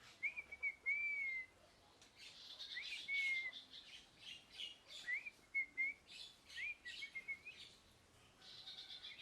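Pet parrot calling: short whistled notes that rise and then level off, mixed with harsher chattering calls, coming in several bursts with a rapid chatter near the end.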